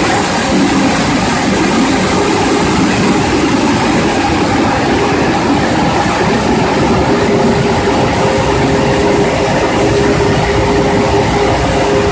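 Touchless car wash dryer blowers running, a really loud, steady rush of air with a faint steady hum underneath.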